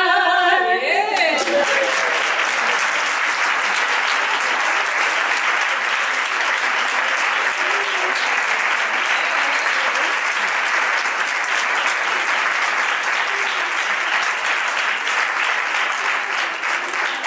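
A woman's unaccompanied singing ends about a second in, and an audience applauds steadily for the rest of the time.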